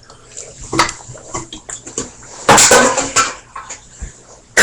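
A woman lets out one loud, long burp about two and a half seconds in, gassy from a can of RC Cola she has just chugged. Small clicks and rustles come before and after it.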